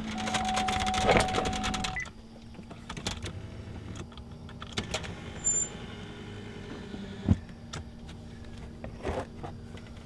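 2004 GMC Envoy's ignition key turned: an electric motor whine with rapid ticking for about two seconds, then a quieter steady hum with a few scattered clicks.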